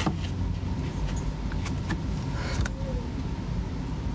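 Steady low background rumble with a faint hum and a few small clicks.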